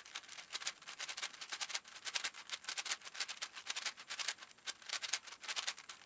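Plastic 6x6x6 Rubik's cube being turned quickly by hand, its layers clicking and rattling in a fast, irregular run of clicks while the last-layer corners are solved.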